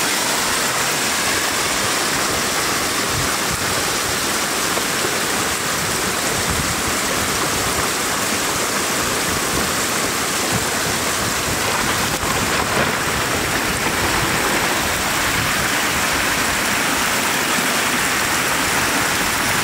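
Floodwater pouring over the edge of a road in a steady rushing stream, splashing onto gravel below.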